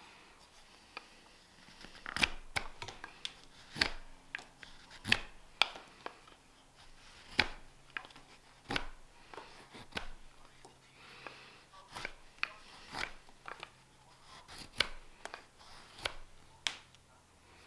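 Carving knife slicing shavings off a green-wood spoon handle: crisp, sharp cuts about every second or so, irregularly spaced.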